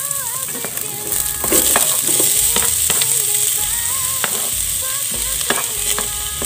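Garlic, shallots and onion sizzling as they drop into hot oil in a stainless steel pot with frying ginger, a steady crackling hiss. Sharp clicks and scrapes come every so often as the cutting board knocks against the pot.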